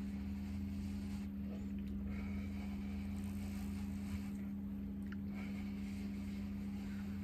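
A steady low mechanical hum with a constant drone.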